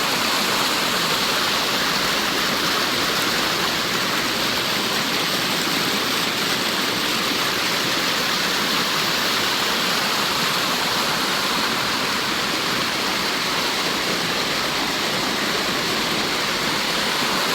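Fast-flowing river water rushing and splashing over rocks: a steady, loud, unbroken rush.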